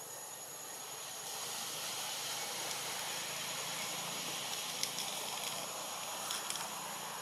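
Steady outdoor hiss with a constant high-pitched insect drone, a little louder after about a second, and a few faint clicks near the end.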